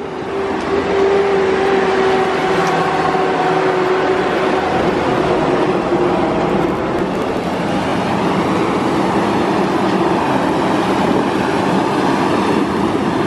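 Steady loud roar of jet airliner engines, with a steady hum that holds for the first half and then fades out.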